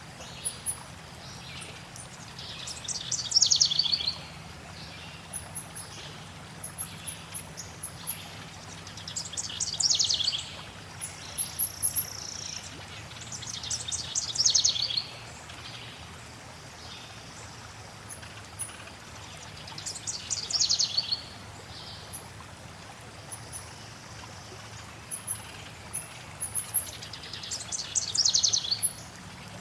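Forest birds singing over steadily flowing water: one bird repeats a trilled phrase that falls in pitch, about every six seconds, while short high chirps come and go.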